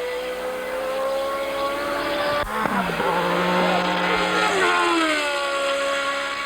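1970s Formula 1 car engine running at high revs, its note climbing slowly. About two and a half seconds in the sound breaks off abruptly and a new engine note wavers, then drops in pitch about five seconds in and holds steady.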